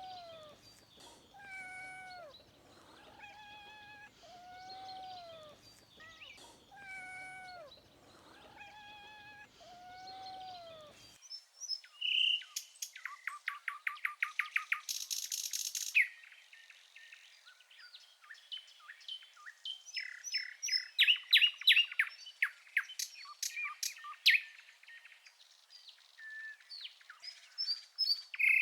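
A cat meowing over and over, about seven meows a second or two apart. About 11 seconds in, the sound cuts to songbirds singing with loud, rapid trills and chirps.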